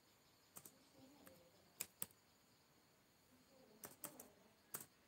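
Near silence broken by about six faint, sharp clicks, scattered and irregular like typing taps, with a faint low murmur of a voice between them.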